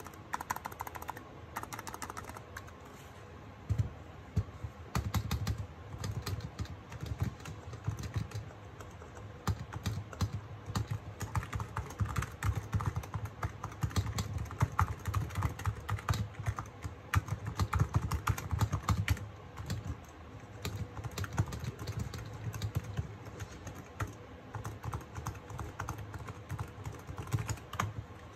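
Typing on a Razer Huntsman Mini 60% keyboard with linear optical red switches: a fast, continuous run of key strokes, lighter at first, then heavier after a brief pause about four seconds in. The keys are struck with some force so the quiet linear switches are heard bottoming out.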